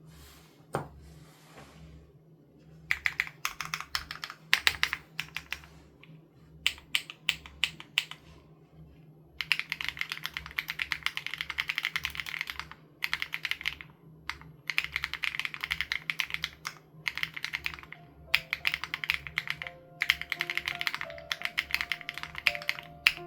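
Fast typing on a custom SPM AL87B mechanical keyboard with BSUN Raw switches and its sound-dampening foam removed: runs of sharp keystroke clicks starting about three seconds in, broken by short pauses. Soft background music plays underneath, with melody notes coming in near the end.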